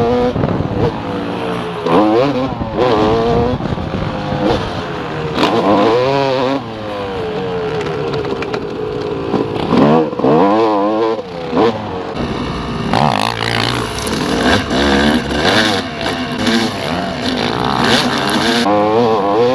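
Motocross dirt bike engines revving hard on the track, the pitch climbing and dropping again and again as the riders open the throttle and shift.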